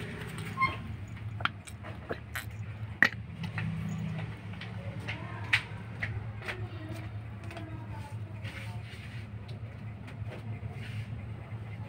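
A kitten heaving and vomiting up grass, which the owner thinks it ate to clear out swallowed staples. Several sharp clicks stand out over a steady low hum.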